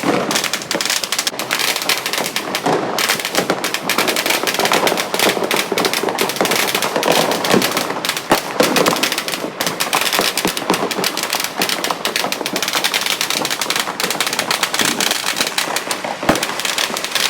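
Fireworks and firecrackers going off all around in a continuous barrage of dense, rapid cracks and pops.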